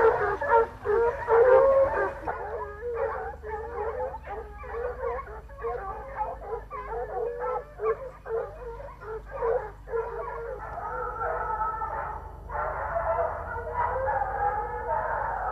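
A pack of scent hounds giving tongue: many short, overlapping baying calls. About ten seconds in they merge into a denser, continuous chorus, the cry of a pack running a line.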